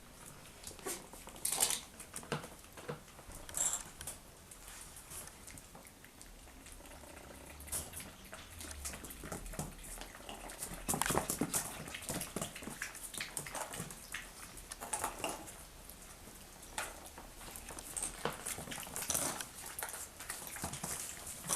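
Chihuahua puppies moving about, giving a few short cries amid scattered scuffling and clicks.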